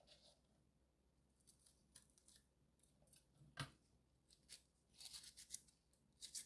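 Faint sounds of a kitchen knife slicing chili peppers lengthwise on a wooden cutting board: light cuts and scrapes, with one sharper tap about three and a half seconds in and a few quick taps near the end.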